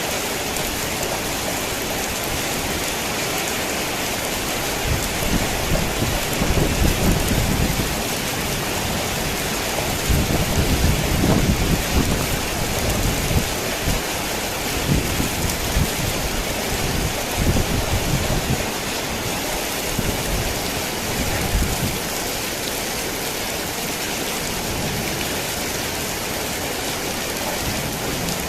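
Heavy rain drumming steadily on a tin roof, with thunder rumbling low in several rolling waves through the middle.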